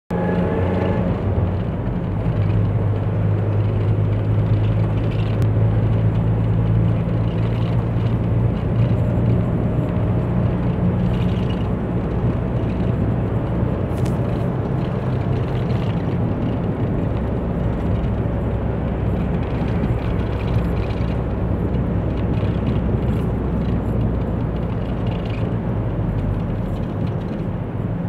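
Steady low engine drone and road noise heard from inside a moving vehicle.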